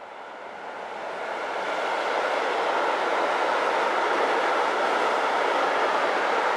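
Freight train wagons rolling past on the rails: steady wheel-and-rail noise that builds over the first two seconds and then holds.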